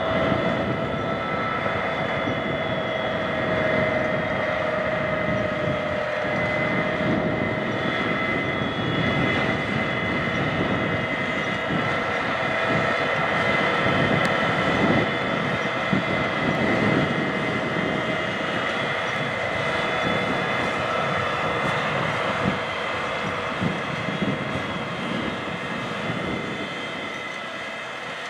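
Case IH 380 CVT Magnum tractor's six-cylinder diesel engine running steadily under load while pulling a 24-row corn planter through the field, with a steady whine riding over the engine. The sound grows a little fainter near the end.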